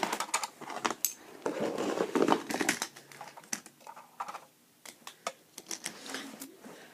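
Irregular light plastic clicks and knocks of toy trucks being handled and moved about on a hard surface, with a soft rustle around two seconds in.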